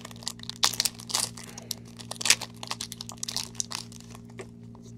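A Bowman Chrome baseball card pack's wrapper being torn open and crinkled by gloved hands: dense sharp crackling that thins out after about four seconds as the cards come out.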